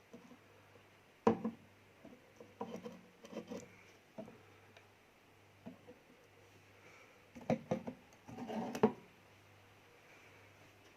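Sharp clicks and knocks from a newly fitted door lock being handled and worked. There is one knock about a second in, a run of clicks around three seconds in, and a louder cluster toward the end.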